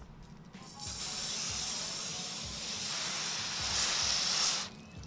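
Garden hose spray nozzle spraying water against a car's side window: a steady hiss that starts about a second in and cuts off abruptly near the end.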